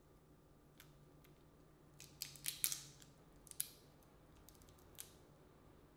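Boiled crawfish shells cracking and snapping as they are peeled apart by hand: a scatter of short, sharp crackles, thickest about two to three seconds in.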